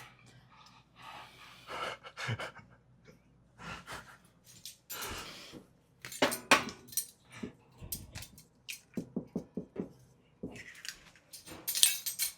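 Kitchen handling sounds: scattered clicks, knocks and clinks of utensils and containers, with a quick run of light taps about nine seconds in and a few breathy noises.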